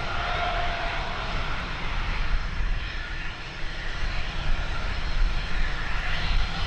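Airplane engine running with a steady whine, while gusty wind rumbles on the microphone.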